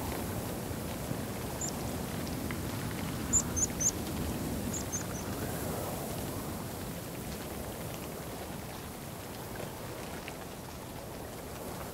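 Steady wind noise with short, very high-pitched bird calls: one call, then two quick groups of three a few seconds in, the first group the loudest.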